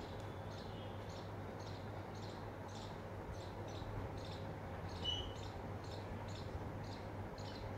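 Short high chirps repeating evenly, a little over two a second, like an insect's song, over a low steady hum. A brief thin peep comes about five seconds in.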